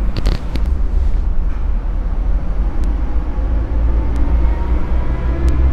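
Steady low background rumble, with a quick cluster of light clicks just after the start and a few faint ticks later.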